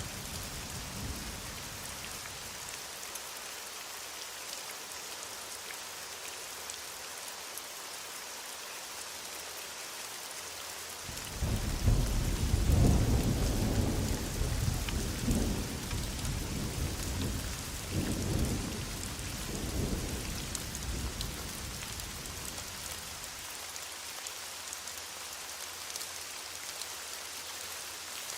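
Steady heavy rain, with a long roll of distant thunder that starts suddenly about a third of the way in, rumbles in several swells and dies away.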